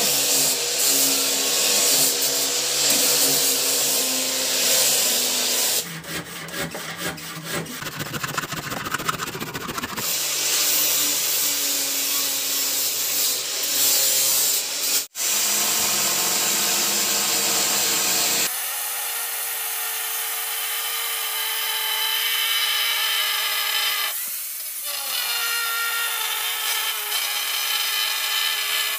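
Electric angle grinder working a wooden plank: the motor's whine changes under load as the disc sands and grinds the wood, with a stretch of quick rough rasping strokes after about six seconds. Near the end the grinder runs with a steady whine as it bites into the wood hard enough to raise smoke, the sound sagging briefly once.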